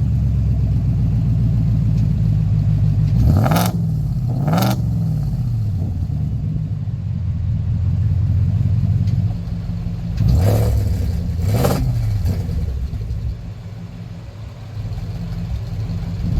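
Ford Raptor R's Whipple 3.8-supercharged V8 idling, blipped with two quick revs about 3 seconds in and two more about 10 seconds in, each rising and falling in pitch. The idle drops quieter in the last few seconds.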